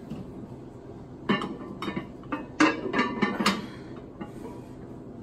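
Loaded barbell clanking: the weight plates and steel bar knock and clink in a quick run of sharp metallic hits as the bar is gripped and worked against the rubber floor. The loudest hits come about two and a half and three and a half seconds in.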